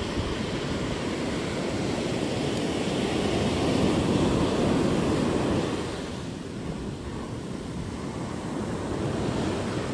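Surf breaking and washing up a sand beach, swelling to its loudest around the middle and easing off about six seconds in, with wind on the microphone.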